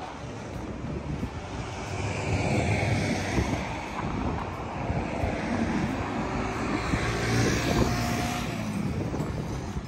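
A motor vehicle going past: a rush of vehicle noise that swells about two seconds in and fades near the end.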